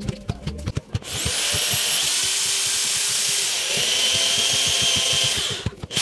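Electric power drill drilling into a wooden rail. The motor spins up about a second in with a rising whine, runs steadily for about four and a half seconds, then stops and winds down shortly before the end.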